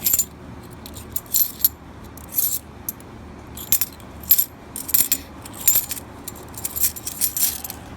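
Half-dollar coins clinking against one another as they are handled one by one out of a roll: about a dozen irregular, sharp metallic clinks with a bright ring, coming closer together in the second half.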